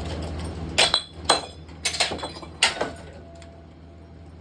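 A 2017 Harbor Breeze Barnstaple Bay ceiling fan being smashed: about five sharp clanking strikes with brief metallic ringing in the first three seconds, then quiet.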